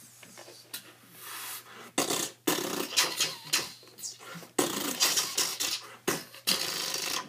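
Mouth-made battle sound effects: a string of noisy, hissing vocal bursts starting about two seconds in and following one after another.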